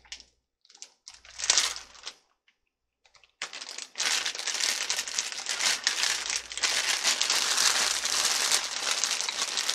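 Crinkly rustling from something being handled, starting suddenly about three and a half seconds in after a few faint knocks, then running on steadily.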